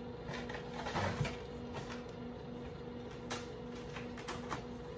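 Dry no-boil lasagna noodle sheets clicking and rustling as they are handled, pulled from their cardboard box and laid into a foil baking pan. There are a few scattered light clicks and rustles, the strongest about a second in and past the middle.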